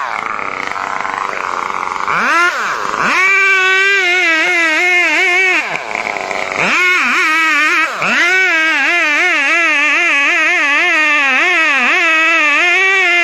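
Stihl chainsaw running at high revs while cutting, its pitch wavering under load and dropping sharply then climbing back about three, six and eight seconds in as the throttle is let off and opened again.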